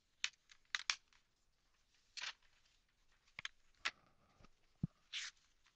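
Faint scattered clicks with two short breathy hisses and a soft low thump near the end: mouth clicks and breaths close to a voice-over microphone.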